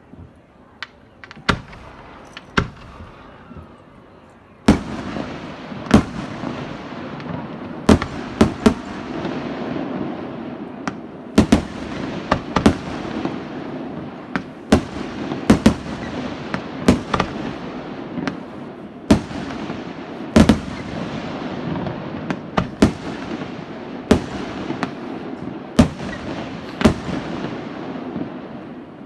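Fireworks display: a few scattered sharp bangs, then from about five seconds in a steady crackling of bursting shells with loud bangs about once a second.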